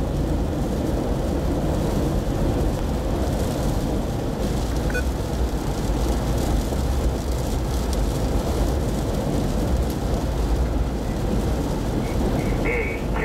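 Hurricane-force wind, sustained near 90 mph, blowing steadily against a parked car as a dense, unbroken low rush.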